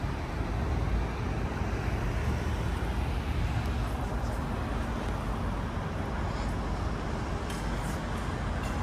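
Steady city street background noise: the low rumble of road traffic.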